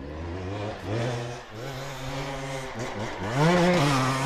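Hard enduro motorcycle engine revving hard under load as it climbs a steep slope. The throttle eases off briefly twice, then is held high and louder from about three seconds in.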